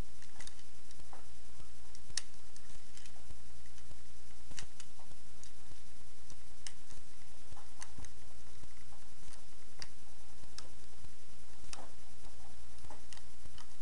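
Small plastic clicks and snaps, about a dozen at irregular intervals, from a Transformers Warrior Class Bumblebee action figure's parts being moved and tabbed into place as it is transformed. A steady low hum runs under them.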